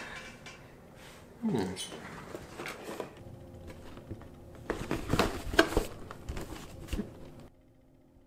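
A cardboard model-kit box being picked up and handled, with scrapes, rubs and sharp taps, busiest about five to six seconds in. There is a short wordless voice sound about a second and a half in, and the sound cuts off suddenly near the end.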